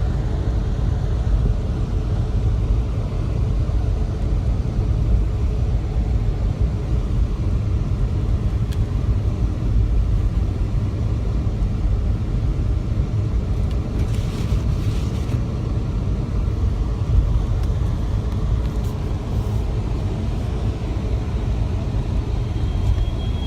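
Steady low rumble of a car driving, heard from inside the cabin: engine and road noise with no sharp events.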